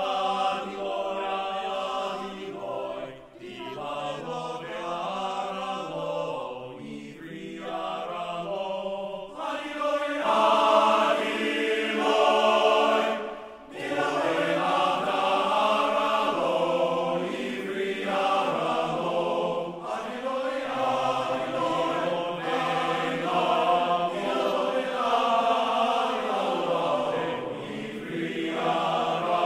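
Large men's chorus singing sustained chords in several-part harmony, with short breaks about three seconds in and again around thirteen seconds, and a louder, fuller passage from about ten seconds on.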